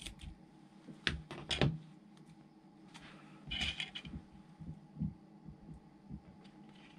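Quiet hand-work sounds: a few sharp clicks of scissors in the first two seconds, then a short scratchy rub as a decal is pressed onto a plastic part with a pointed tool, and a couple of light taps.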